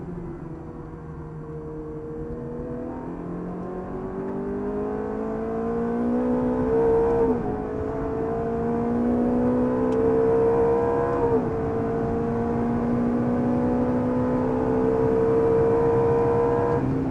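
Ferrari F430's V8 heard from inside the cabin under hard acceleration. The engine note climbs steadily and drops sharply at two upshifts, about seven and eleven seconds in.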